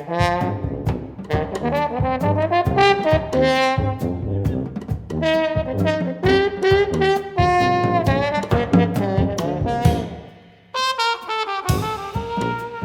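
Small brass band playing jazz live: trombone and trumpet over sousaphone and drum kit. The band breaks off for about a second near the end, then comes back in.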